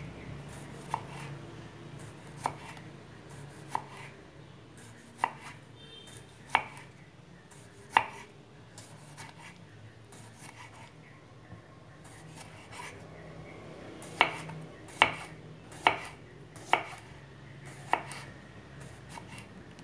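Kitchen knife slicing a cucumber into thin rounds on a wooden cutting board: single sharp knocks of the blade on the board, roughly one every second or so, with a longer pause in the middle and a quicker run of cuts near the end.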